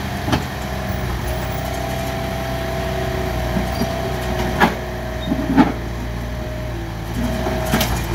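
Mini excavator's engine running steadily under load, with a held hydraulic whine as the boom swings back from the truck and lowers the bucket. A few sharp knocks about halfway through and again near the end, the loudest sounds, as the bucket works into the dirt and rubble.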